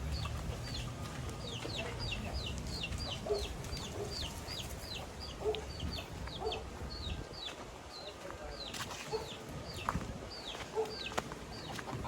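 Chickens clucking, over a steady run of short, high, falling peeps repeated two or three times a second.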